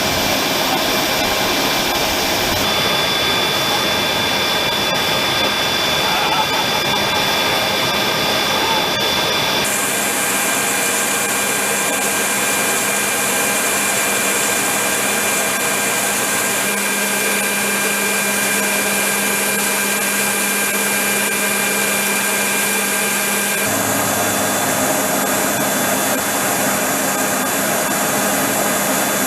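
AH-64 Apache helicopter's twin turboshaft engines running: a steady turbine whine over a loud, even rush. The mix of tones changes abruptly about ten seconds in and again near the end.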